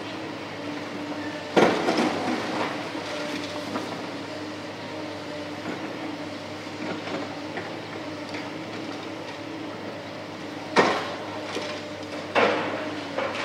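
Diesel engines of tracked excavators running steadily during demolition of a concrete canopy. Loud crashes of concrete being broken and falling come about a second and a half in and three more times near the end, with crunching and clattering after them.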